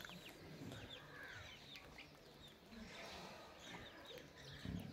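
Faint chirping of birds, many short quick chirps repeating throughout, with a soft low thump near the end.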